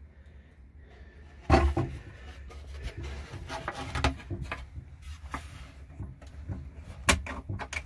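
Wooden cabinet panel in a homemade camper being pulled open on metal drawer slides: a loud knock about one and a half seconds in, then scattered scrapes and clicks, with a sharp click near the end.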